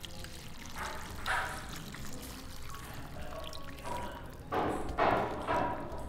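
Duck broth being poured from a glass bowl into a stainless-steel pot of cooked duck pieces, splashing. The pour comes in surges, louder about a second in and again near the end, as chunks of white sweet potato slide in with the liquid.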